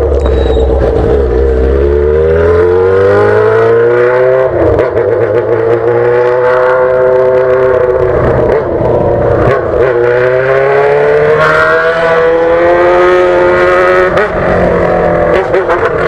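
Yamaha XJ6's inline-four engine through a straight-pipe exhaust with no muffler, loud, accelerating on the road. The pitch climbs several times, broken by gear changes about four and a half, nine and fourteen seconds in.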